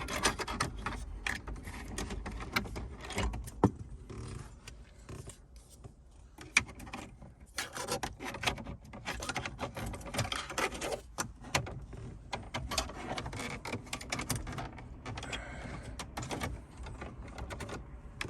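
Plastic interior trim of a Mini Cooper R56 being handled and pushed back into place: irregular scraping and rubbing of plastic on plastic, with many sharp clicks and knocks.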